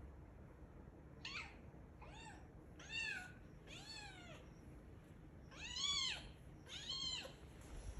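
Kitten meowing six times, each a short high call that rises and then falls in pitch; the calls about three seconds and six seconds in are the loudest.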